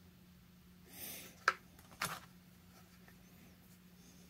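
Small handling sounds of a chainsaw's plastic oil tank, its Tygon line and a pair of forceps being worked by hand: a soft rustle about a second in, then two sharp clicks about half a second apart.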